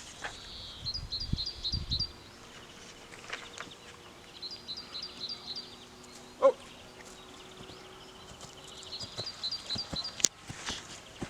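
A songbird singing a short phrase of about six quick high notes, repeated three times a few seconds apart. A single short, sharp sound stands out just past the middle.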